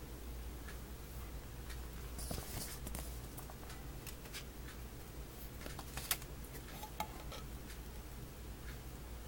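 Hands handling a plastic CD case and disc: scattered light plastic clicks and taps, a brief rustle about two and a half seconds in, and two sharper clicks about six and seven seconds in, over a steady low hum.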